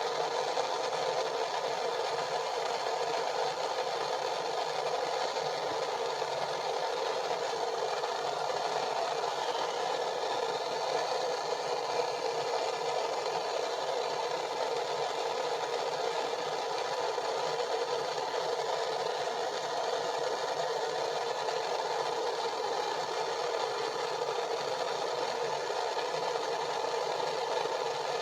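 Propane torch flame burning steadily, a constant hiss, while a copper pipe fitting is heated and soldered.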